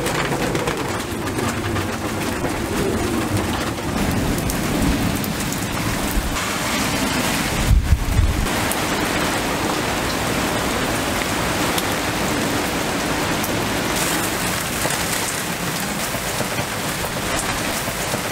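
Heavy rain pouring down in a steady hiss, with a brief low boom about eight seconds in.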